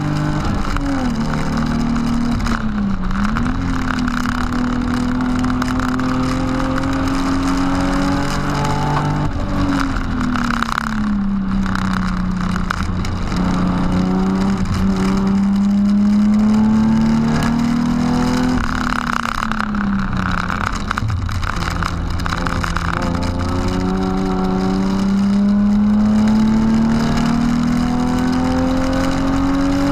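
BMW E36 328i's 2.8-litre straight-six engine heard from inside the cabin under hard track driving. Its pitch falls sharply three times, about two, ten and twenty seconds in, as the car slows and changes gear, and climbs again under acceleration in between, rising toward the end.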